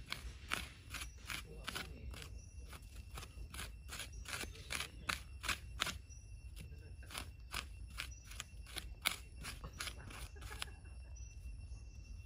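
Bare hands scraping and scratching through dry sandy soil in quick repeated strokes, several a second, stopping near the end. A faint steady high tone runs underneath.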